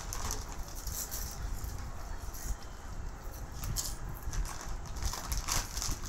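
Lay's potato chip bags crinkling in irregular bursts as hands dig into them, with chips being crunched, over a steady low rumble.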